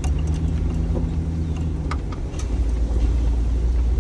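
Steady low rumble of a moving car, with a low hum during the first two seconds and a few faint clicks.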